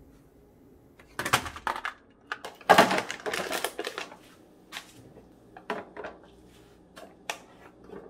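Small plastic food-storage tubs clattering and clicking as they are handled and set into a refrigerator door bin. There is a short clatter about a second in and the loudest, longer one around three seconds in, then a few single light clicks and taps.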